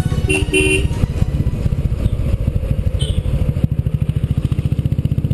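Royal Enfield single-cylinder motorcycle engine running at a steady cruise, with a fast, even beat of exhaust pulses. Two short, high beeps come about half a second in.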